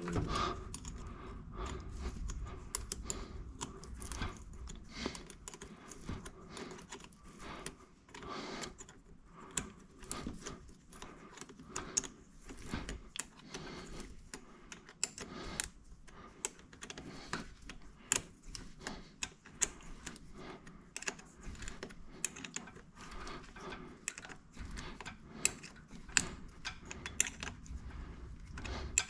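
Irregular small metallic clicks and taps of hand tools and fittings being handled during fuel-line work.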